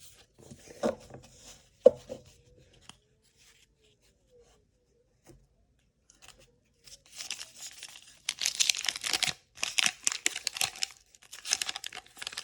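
Wax paper wrapper of a 1985 Topps baseball card pack being torn open and crinkled, crackling in a run of bursts that starts about seven seconds in, after a quiet stretch. A single sharp tap comes about two seconds in.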